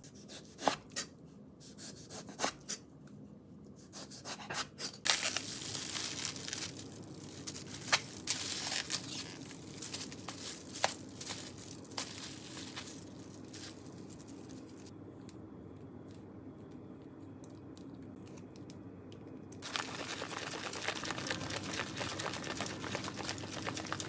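Thin plastic film and sauce sachets being peeled and torn off natto containers: crinkling with sharp clicks. From about twenty seconds in, a dense fine clicking and squishing as sticky natto is stirred with wooden chopsticks.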